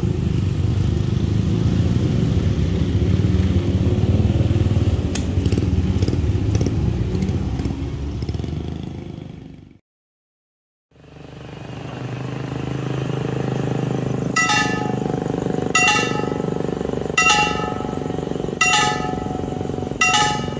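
A heavy vehicle rumble fades out about halfway through. After a short silence, traffic noise returns and a railway level-crossing warning bell (genta) rings five times, about a second and a half apart, signalling that a train is approaching.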